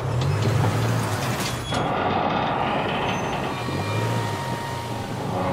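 Heavy vehicle noise as a Land Rover Discovery begins pulling a 110-tonne road train: a low engine hum under load, shifting in pitch, over the rumble of the trucks and trailers. About two seconds in the hiss on top drops away abruptly.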